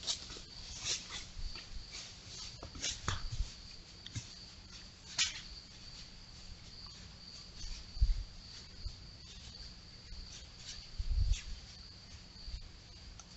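A steady high-pitched insect trill sets in about a second and a half in, with scattered short, sharp animal calls over it and two low thumps near the middle and later on.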